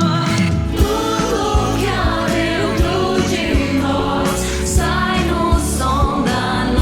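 A group of singers singing a song together in harmony over a band arrangement with a steady beat.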